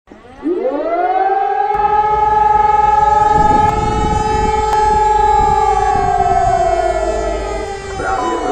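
KIRKE 400 civil defence siren sounding a test: it starts up with a quick rising sweep in its first second, then holds a loud steady chord of several tones, one of which drifts downward near the end.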